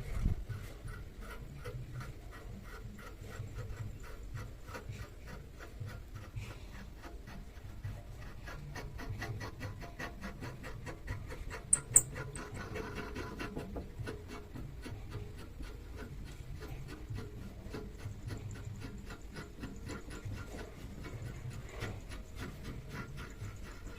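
Rapid, even scraping strokes of a hand tool working metal, like filing, with one sharp click about halfway through.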